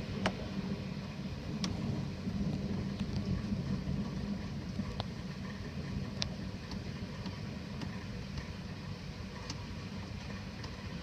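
Thunderstorm rain with a steady low rumble underneath and a few sharp, scattered ticks of drops striking a hard surface.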